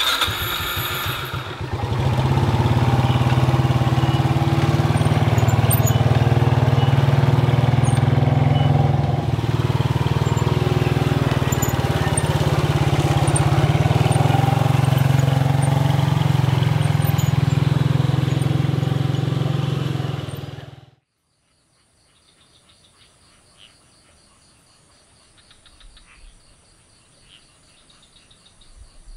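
Small motorcycle engine running steadily while riding, with road noise; it cuts off suddenly about 21 seconds in, leaving faint insects chirping.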